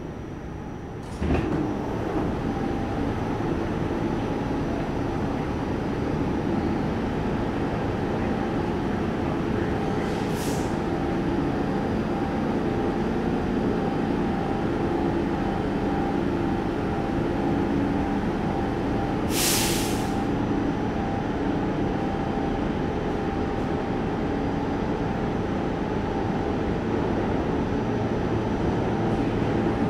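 New York City subway car heard from inside: the steady rumble and hum of the train, which jumps louder after a clunk about a second in. Two short hisses of air come about ten and twenty seconds in.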